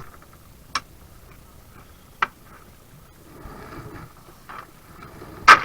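Three sharp knocks spread over a few seconds, the last and loudest near the end, with faint background noise between them.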